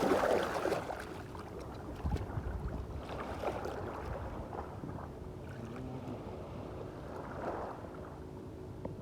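Shallow sea water lapping and sloshing at the shoreline, a steady low wash of noise.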